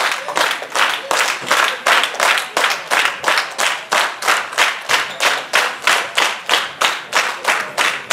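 Audience clapping in unison in a steady rhythm, about three claps a second.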